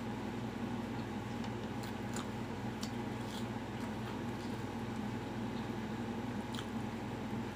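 Mouth sounds of someone chewing breaded fried chicken fillet, with soft scattered clicks and smacks, over a steady low hum.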